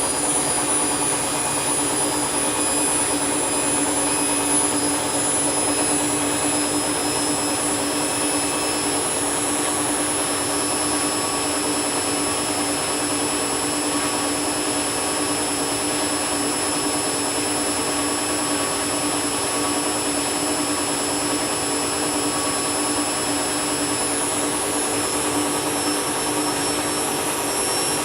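Candy washing machine spinning at speed during an empty bleaching cycle: a steady motor whine with high, unchanging tones.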